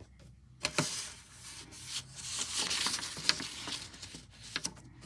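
Drawing tool scratching across paper in a run of strokes, starting under a second in and stopping near the end, with a few sharp clicks among them.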